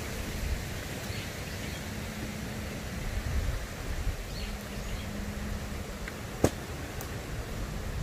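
Wind rumbling on the microphone with a few faint bird chirps while a dome tent is pitched on grass; one sharp click about six and a half seconds in.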